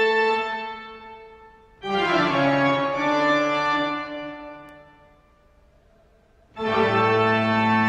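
Organ music: loud held chords. One chord dies away in the first second, a new one is struck about two seconds in and fades out, and after a short lull another chord starts near the end and is held.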